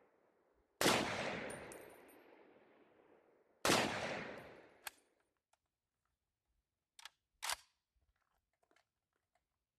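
Two rifle shots from an M1A Tanker, a .308 with a 16-inch barrel and muzzle brake, about three seconds apart. Each crack is followed by a long echo that fades over a couple of seconds. Afterwards come a few short, sharp clicks.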